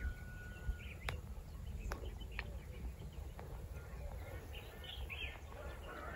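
Quiet outdoor ambience: faint bird chirps and short calls, with a thin held whistle near the start and a few sharp ticks, over a low steady rumble.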